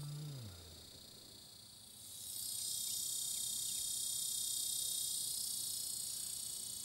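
Cicadas buzzing in a high-pitched steady drone that swells loud about two seconds in and holds. Right at the start a short low hum drops in pitch.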